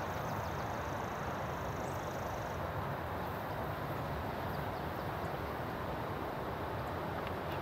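Steady background noise: an even hiss over a low rumble, with no distinct events. A faint high-pitched tone stops about two and a half seconds in.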